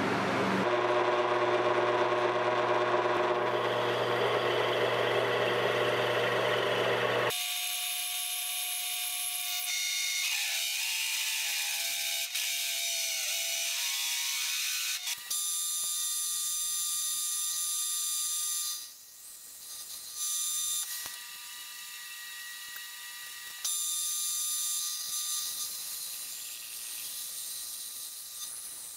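Milling machine spindle running as a large rotary cutter bores into an aluminium plate: a steady mechanical whir with high, even tones. The sound changes abruptly about seven seconds in, losing its low end.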